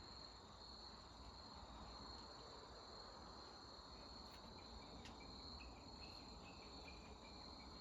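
Faint, steady outdoor insect chorus, a continuous high trilling, with a string of faint short chirps in the second half.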